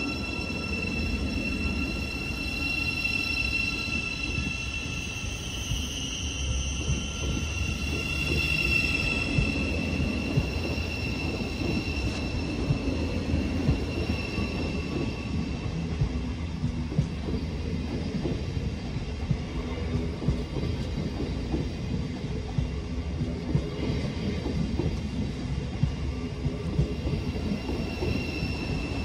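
Thameslink Class 700 electric multiple unit pulling out along the platform. A high electric whine shifts in pitch over the first several seconds as the train gathers speed, over a steady rumble from the carriages. From about ten seconds in, the wheels click at a regular pace of about once a second.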